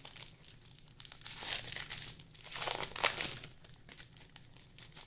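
Trading cards and their pack wrapper being handled, crinkling and rustling, with two louder swishes about a second and a half and three seconds in.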